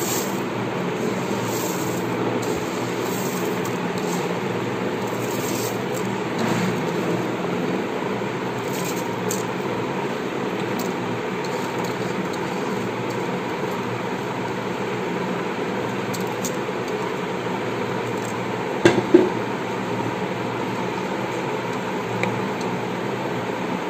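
Rice being poured into a pot of boiling liquid in a rice cooker and stirred with a spoon, over a steady rushing noise. Two sharp knocks of the spoon against the pot come about nineteen seconds in.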